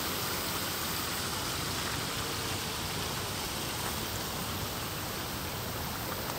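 Steady rushing of water running over stones in a small garden stream.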